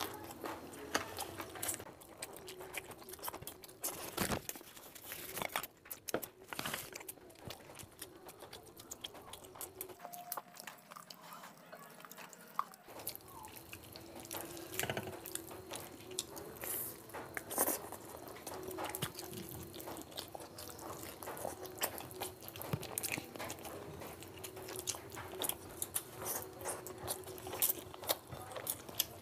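Close-miked sounds of a person eating chicken curry and rice by hand: chewing and wet mouth sounds, with many short, irregular clicks.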